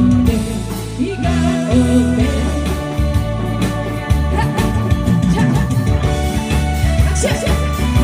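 Trot music playing loudly: a backing band with steady bass and a regular beat, with singing over it.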